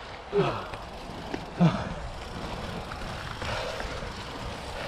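Mountain bike rolling fast down a leaf-covered dirt trail: steady rolling noise from the tyres on the loose, leafy ground. Two brief falling-pitch vocal sounds break in about half a second and a second and a half in, the second one the loudest.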